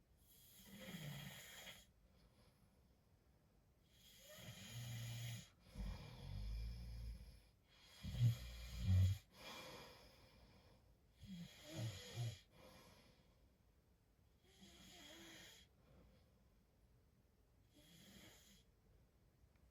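A man snoring in his sleep: about seven slow, irregularly spaced breaths, several with a low rattle, the loudest a pair of heavy snores around eight to nine seconds in and the last one faint.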